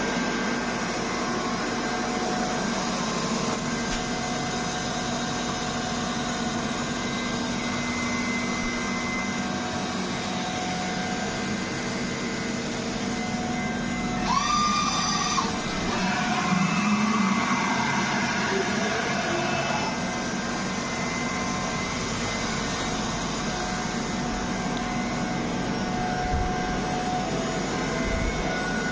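MAHO MH 600 E CNC milling machine running with a steady mechanical hum and whine. About halfway through, a brief louder whine rises and then holds, followed by a few seconds of shifting tones before the steady running returns.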